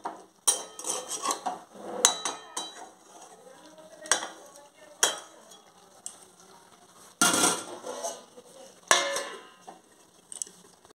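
Metal spatula scraping and clanking in a metal kadai of thick chicken curry, then metal lids and pots clattering as the pan is covered. A series of separate sharp clanks and scrapes, the longest clatter about seven seconds in.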